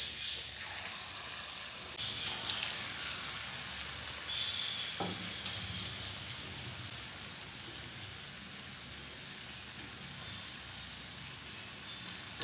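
Hot oil sizzling steadily in an iron kadhai as gulgule, jaggery and wheat-flour batter dumplings, deep-fry. It grows louder a couple of seconds in and again around four and a half seconds, with a short knock about five seconds in.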